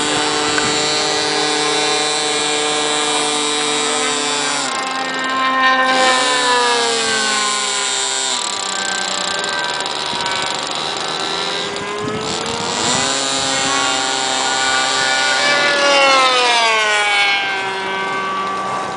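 Engine of a Cermark Alley Cat RC pylon racer plane running at high revs in fast flight. Its pitch drops several times as the plane passes back and forth.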